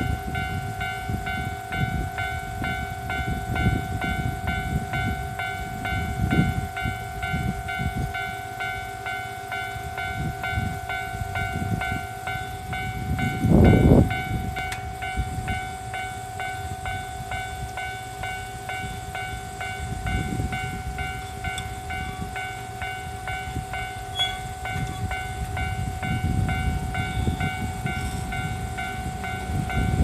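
Japanese level-crossing warning bell ringing on and on in a steady repeating electronic tone, over irregular low rumbling that is loudest about halfway through. Near the end a low rumble builds as a Keihan 10000 series train approaches the crossing.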